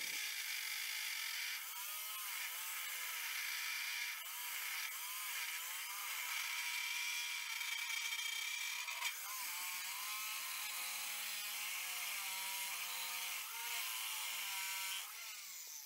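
Abrasive chop saw cutting through quarter-inch-wall steel tubing: a steady high grinding hiss, with the motor's pitch wavering up and down as the blade is fed into the cut. It eases off about a second before the end.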